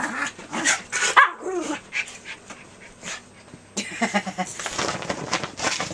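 Miniature schnauzers play-fighting, barking and yipping in short, sharp calls, with a loud yelp about a second in and a dense run of barks in the last two seconds.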